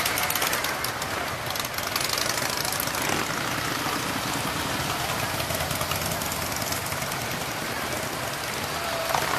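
Harley-Davidson V-twin motorcycles riding past one after another, their engines running in a steady, continuous rumble.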